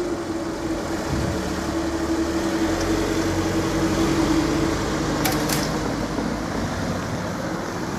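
Level crossing barrier motors humming steadily as the barrier booms lift, stopping about five and a half seconds in with a couple of sharp clicks. Car engines run as waiting cars start moving over the crossing.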